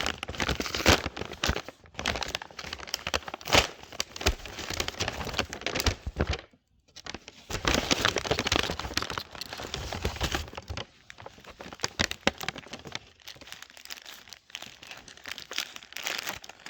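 Takeaway food packaging being handled and unwrapped: bags and wrappers crinkling and rustling with sharp crackles, pausing briefly about six seconds in and growing quieter and sparser in the second half.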